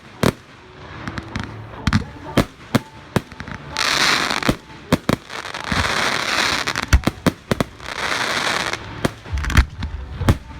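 Fireworks display: many sharp bangs of shells bursting, irregularly spaced throughout, with three stretches of dense hissing crackle in the middle.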